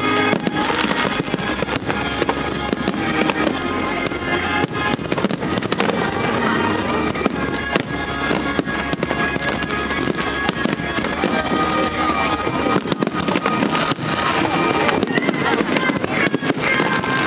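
Fireworks display: a dense, continuous run of bangs and crackles from bursting shells, with music playing underneath.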